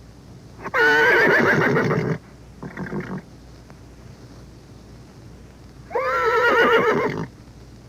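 Horse neighing twice, each neigh about a second and a half long with a quavering, wavering pitch. A shorter, lower sound comes between them.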